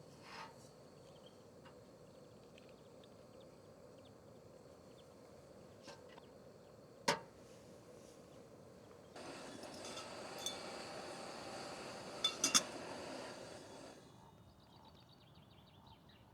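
Camp coffee gear being handled: a sharp clink about seven seconds in, then a steady rushing sound for about five seconds, with a few quick clinks near its end.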